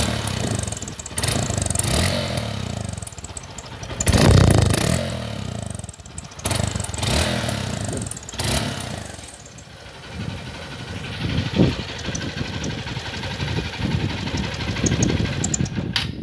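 Motorcycle engine revved in a series of throttle blips, the biggest about four seconds in, while a washer wedged in the exhaust tip whistles like a turbo.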